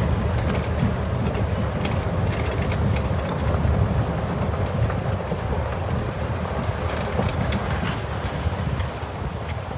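Riding in a golf cart over a sandy dirt track: a steady low rumble from the cart and its tyres, with wind buffeting the microphone and scattered small rattles and clicks.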